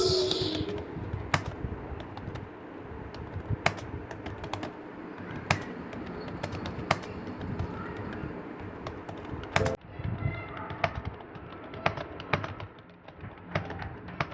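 Computer keyboard keys clicking now and then, single keystrokes about a second or two apart, over a steady background hum.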